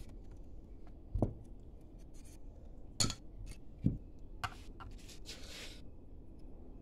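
Hobby knife blade prying and scraping at the seam between a Bluetooth speaker's plastic end cap and its metal grille: three sharp clicks, then about a second and a half of scratching past the middle.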